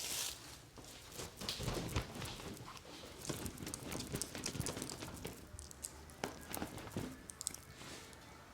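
Quiet, irregular clicks, taps and rustles from hands and small tools being handled close to the microphone.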